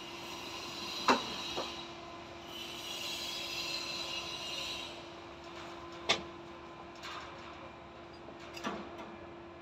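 Hand work on plumbing fittings: a few sharp knocks and clacks of tools and parts being handled, the loudest about a second in, with a stretch of scraping in the first half over a steady hum.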